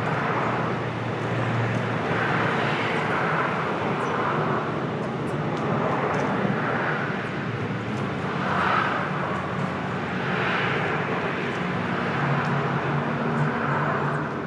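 Distant engine noise: a steady hum that swells and eases every couple of seconds, like traffic passing.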